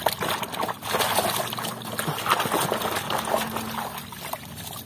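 A hand sloshing and swishing through muddy water in a metal basin, scrubbing a toy car, with many small splashes; near the end the toy is lifted out with water streaming off it.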